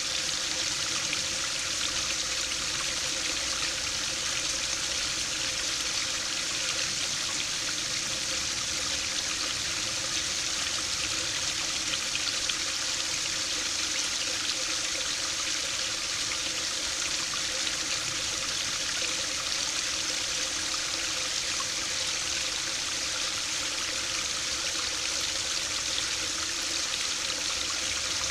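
Small stream of water falling over a low stone step into a shallow pool, a steady splashing trickle.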